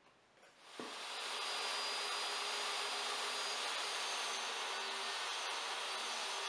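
Table saw switched on about a second in, its motor and blade spinning up quickly to full speed and then running with a steady whine.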